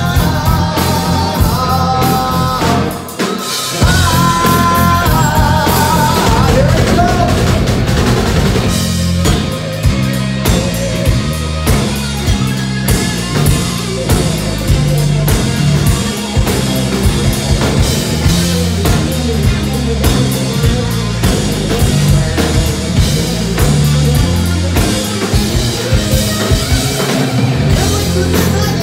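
Live rock band playing loud: distorted electric guitars, bass and drum kit, with a sung vocal line over the first several seconds. After that the band carries on instrumentally, the lead electric guitar to the fore.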